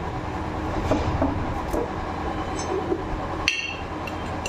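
Steel spoon scraping and tapping inside a glass jar of turmeric powder, with one sharp clink against the glass, ringing briefly, about three and a half seconds in. A steady electric fan hum runs underneath.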